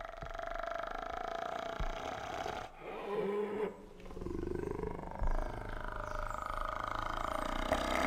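Spotted hyena growling, a rough, drawn-out vocal sound in three long runs with two short breaks; in the last run the pitch rises.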